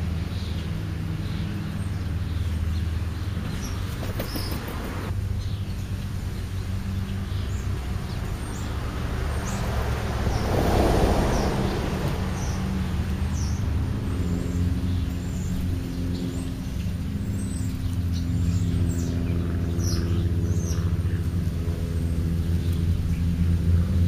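A steady low motor hum carries on throughout, and a vehicle swells past about ten seconds in. Short high bird chirps are scattered throughout.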